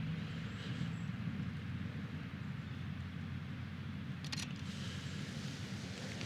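Steady low outdoor rumble, with a brief cluster of sharp clicks about four seconds in.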